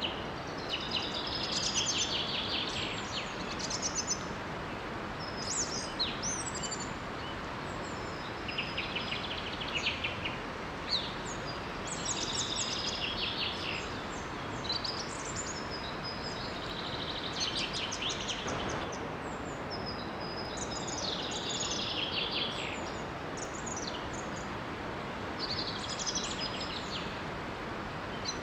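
Birds singing short, rapid phrases every second or two over the steady rush of a small waterfall.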